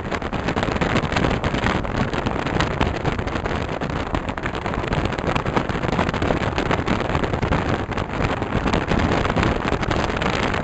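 Steady rush of wind and road noise from a car travelling at highway speed, with wind buffeting the microphone.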